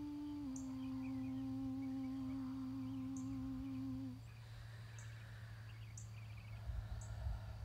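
A woman humming one long steady note as light-language toning. The note steps slightly lower about half a second in and stops about four seconds in. Faint high chirps, about one a second, and small trills go on behind it over a low steady hum.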